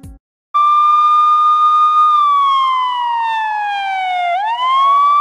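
Music cuts off. After a short gap, a loud, steady, beep-like electronic tone starts. It holds, slides slowly down in pitch, then swoops quickly back up about four seconds in and holds again.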